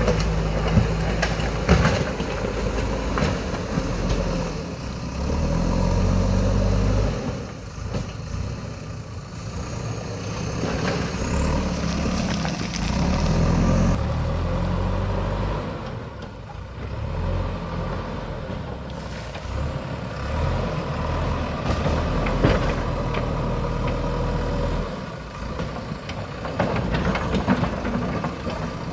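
JCB backhoe loader's diesel engine running, its note rising and falling every few seconds as it works under load, with a few sharp knocks.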